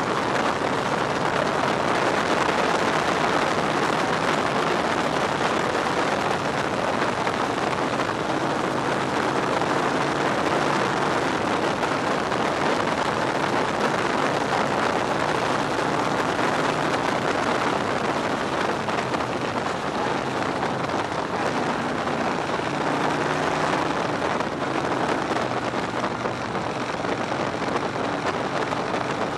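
Victory Hammer's V-twin engine running steadily at road speed, heard from the fuel tank under loud, steady wind rush over the microphone.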